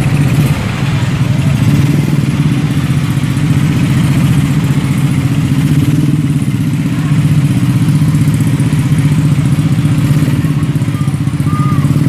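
Engines of slow-moving street traffic, motorcycles and a large tour bus, running together as a steady, loud low hum with a fast even throb.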